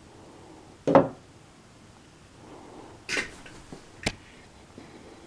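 Handling noises: a single knock about a second in, a brief scraping rustle about three seconds in, and a sharp click about four seconds in.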